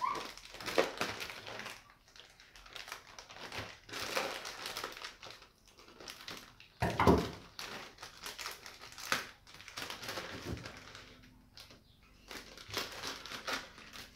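Plastic courier mailer bag crinkling and rustling in irregular bursts as it is handled and opened, the loudest crinkle about seven seconds in.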